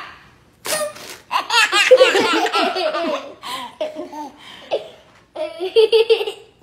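Baby laughing hard in rapid, high-pitched runs of giggles and belly laughs. Two short noisy bursts, about a second in and near the end, come between the laughs.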